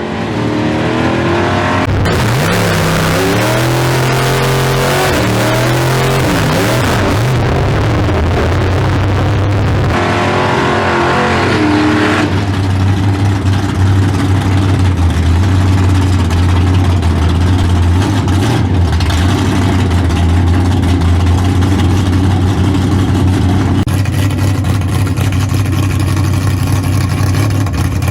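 Big-block V8 with a tunnel-ram intake under hard acceleration down a drag strip. The engine note climbs and drops several times as it pulls through the gears over the first dozen seconds, then settles into a steady, deep drone.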